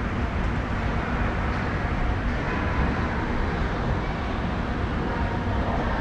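Moving walkways running, a steady deep rumble.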